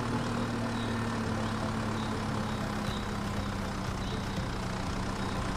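Toy tractor's engine sound: a steady idling hum with a faint high chirp repeating through it.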